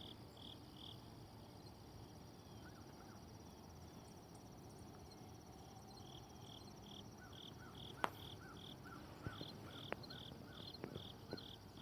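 An insect chirping faintly in an even rhythm, about three chirps a second. It stops for a few seconds and starts again about halfway through, over quiet outdoor ambience with a few soft clicks.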